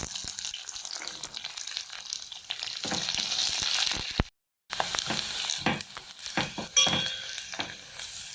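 Chopped onion and garlic sizzling in hot oil with tempering seeds for a dal tadka, stirred with a spoon that clicks and scrapes against the pan. The sound cuts out suddenly for about half a second halfway through.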